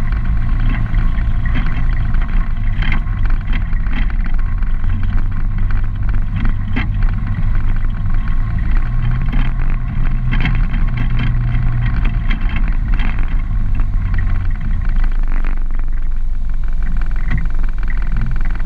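ATV engine running at low speed, its pitch rising a little after halfway through and settling back down, with scattered clicks over it.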